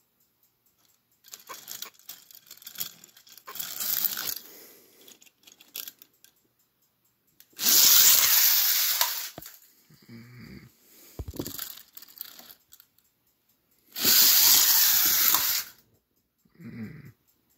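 Die-cast push-along toy trains rolling fast along plastic track: a rough rattling in two long bursts of about two seconds each, with smaller clatters and knocks of the toys and track between them.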